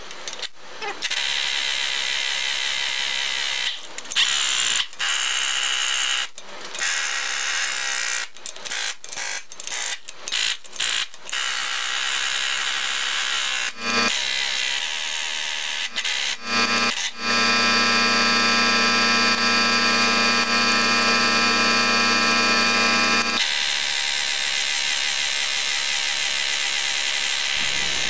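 Handheld power driver running bolts on a tractor's front planetary hub: many short trigger bursts in the first half, then longer steady runs of several seconds later on.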